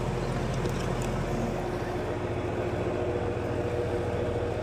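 Air-conditioning equipment running with a steady mechanical hum; a faint higher tone joins in about three seconds in.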